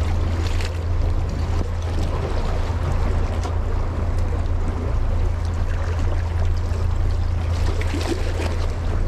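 Steady seaside background of wind and water: a constant low rumble with a hiss over it and a few faint ticks.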